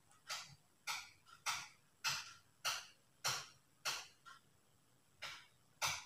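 A thin stick being worked in and out of a nostril to tickle it into a sneeze: short scratchy strokes, a little under two a second, with a brief pause about four and a half seconds in.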